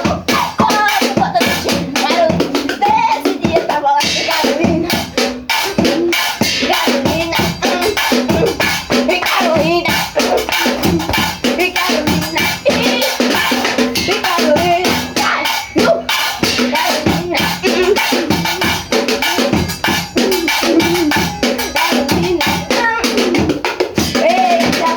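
A band playing São João festival music, with a steady drum-kit beat under a pitched melody.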